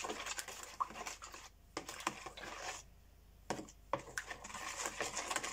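Quick light clicks and taps with some rustling, as eggs, milk and salt go into a plastic mixing bowl and are handled with a spoon. There is a short lull about three seconds in.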